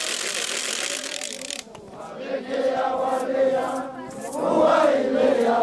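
A broad rushing noise that stops abruptly about one and a half seconds in, then a crowd of Huaylia dancers chanting and singing together, growing louder toward the end.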